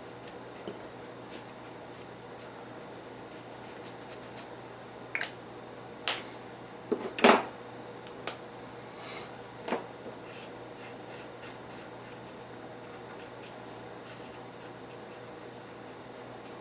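Brush markers stroking on paper with faint scratchy strokes. Between about five and ten seconds in come several sharper clicks and taps, the loudest about seven seconds in.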